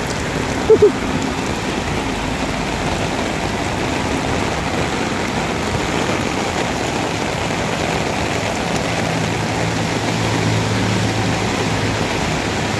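Very heavy rain falling steadily on the umbrella overhead and the wet pavement, a continuous hiss. A low steady hum joins about two-thirds of the way through.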